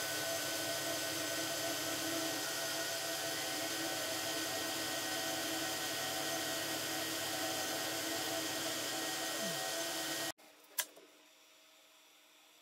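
Flashforge Adventurer 5M Pro core-XY 3D printer running a high-speed print: a steady whir of fans and motors with several steady tones, which cuts off about ten seconds in. After it comes a single click over a faint hum.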